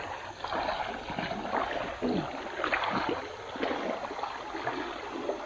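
River water splashing and sloshing close by, in irregular uneven bursts.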